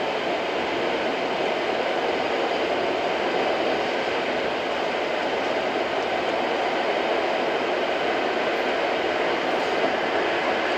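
Steady road and tyre noise with engine hum, heard inside a moving car's cabin at cruising speed, even and unbroken throughout.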